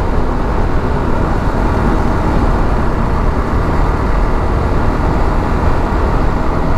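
Motorcycle riding at speed: a steady rush of wind over the microphone mixed with the bike's running and road noise.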